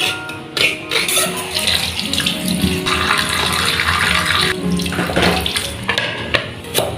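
Water running from a kitchen tap for about a second and a half, with a few knocks around it, over background music.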